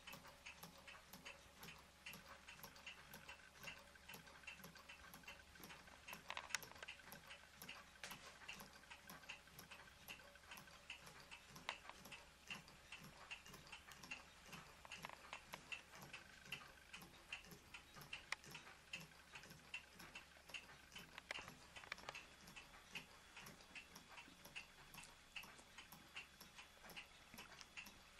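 Ross yoke low-temperature Stirling engine running slowly on a mug of hot water, giving a faint, regular ticking as it turns, with an occasional louder click.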